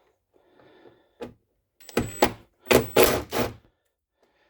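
Small cordless impact driver hammering on the T27 Torx screws of a car door latch, in about four short bursts over the second half.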